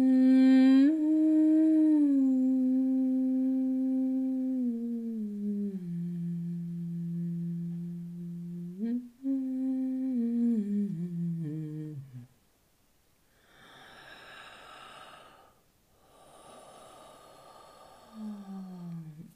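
A woman humming with closed lips in long held notes. The pitch steps up briefly, then slides down in stages to a low note and stops about twelve seconds in. Two long, soft breaths follow.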